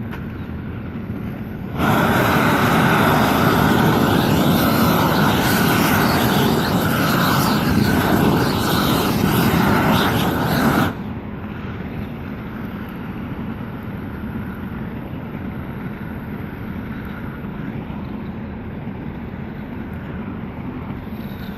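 Propane roofing torch burning at full flame, a loud steady rushing noise that comes on suddenly about two seconds in and cuts off suddenly after about nine seconds. A quieter steady rumble runs before and after it.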